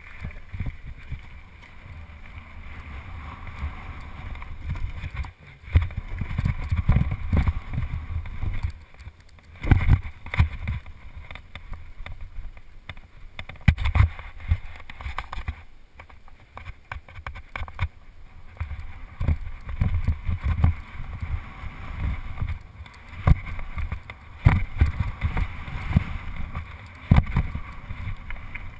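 BMX bike ridden over gravel and dirt, heard through a handlebar-mounted camera: a steady low rumble of tyres and frame shaking, with wind on the microphone, and sharp knocks and clatters from the bike hitting bumps several times.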